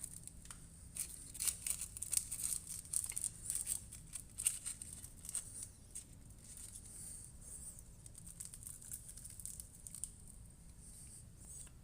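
Handling noise of a 5-pound weight being worked onto the end of a PVC lever bar: a quick run of small clicks, scrapes and rustles, busiest over the first few seconds and then sparser.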